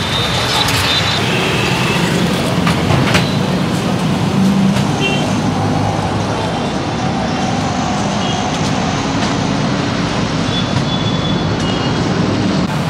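Steady street traffic noise from a busy road, with faint voices in the background and a few short high beeps.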